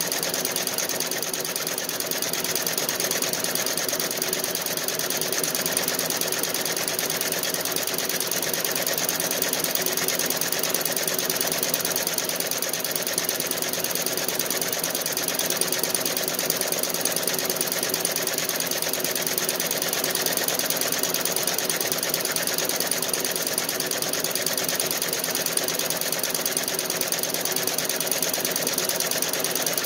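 Feiyue nine-needle commercial embroidery machine running, its needle bar stitching in a fast, steady rhythm that goes on without a break.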